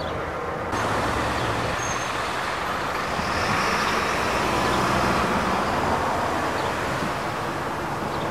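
Road traffic noise: a steady wash of passing vehicles, swelling a little from about three to five seconds in.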